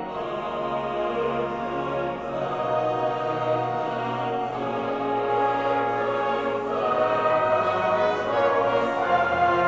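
Boys' choir singing a slow sacred Communion piece in sustained chords, with held low notes underneath that change about two seconds in and again near the end.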